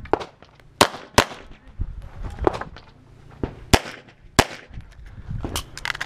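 Pistol shots fired at irregular intervals in a string of about eight, some in quick pairs about a third of a second apart.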